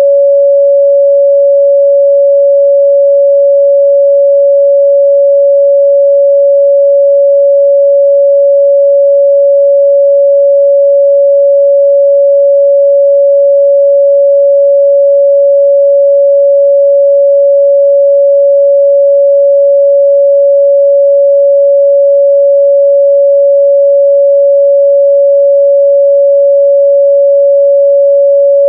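A steady, loud 562 Hz sine-wave test tone, a single pure pitch held without change.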